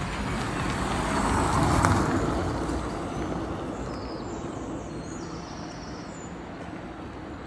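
A car driving past on the road, its tyre and engine noise swelling to a peak about two seconds in and then fading away.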